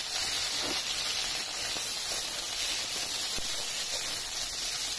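Flat beans and potato pieces sizzling in hot oil in a steel wok, a steady hiss as they are stirred with a spatula.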